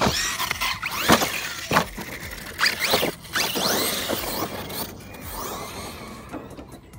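Arrma Kraton 6S BLX RC monster truck's brushless motor whining up and down in pitch as it is throttled on and off repeatedly, with tyres scrabbling over loose dirt. It is loudest in the first few seconds and fades as the truck drives away.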